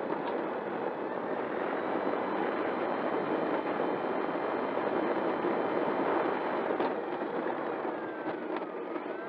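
E-flite Timber X's brushless electric motor and propeller spinning on the ground, heard close up: a steady rushing prop noise with a faint motor whine. Near the end the whine dips and rises in pitch as the throttle changes.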